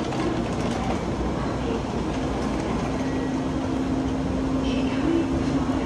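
Steady low rumble of a Shinkansen bullet train moving through the station. A steady hum joins in about two seconds in.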